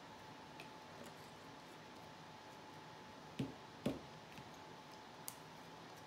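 Small clicks and taps of art tools being handled over a tabletop, with two louder knocks about half a second apart a little past the middle, as of a marker or cap being set down.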